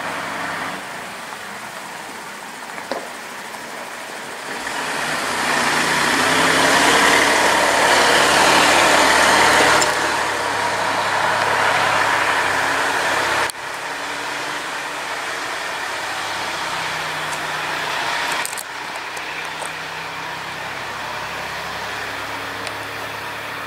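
Heavy construction machine's diesel engine running as it travels along a dusty road, with broad noisy rumble that grows loudest in the middle as it passes close and drops off suddenly a little past halfway.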